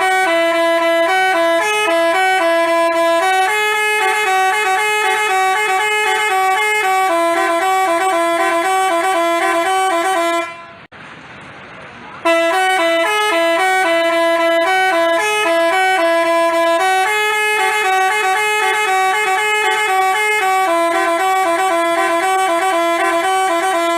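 Telolet basuri multi-tone bus horn playing a stepping tune of short notes, loud and clear. The same phrase sounds twice, with a break of about a second and a half about halfway through.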